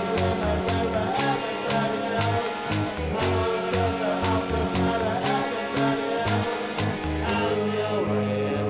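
Rock band music: electric guitar from a Fender Japan Jazzmaster over a drum-machine beat of about two hits a second, with a moving bass line. Near the end the beat drops out and a long low note is held.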